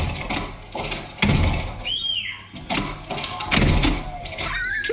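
A dog jumping and pawing at a glass sliding door, making a series of knocks and thumps on the glass and frame, with a couple of short high squeaks.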